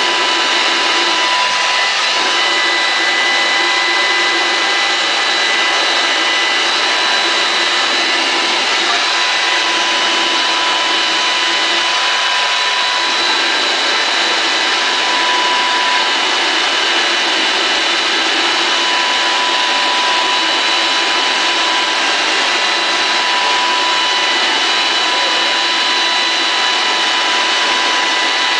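Homemade gasoline-fuelled ram jet engine running, a leaf blower forcing air into its intake: a loud, steady rushing roar with a steady high-pitched whine on top.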